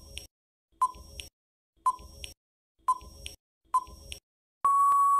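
Countdown timer sound effect: five short beeps about a second apart, then one long steady beep near the end signalling that time is up.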